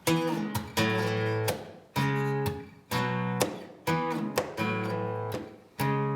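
Acoustic guitar strumming chords, a new strum about once a second, each chord ringing and fading before the next.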